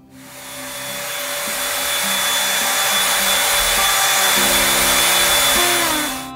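A red stick vacuum cleaner runs as it is pushed back and forth over a doormat, a steady rushing whine with a thin high tone through it. It builds up over the first couple of seconds and cuts off just before the end.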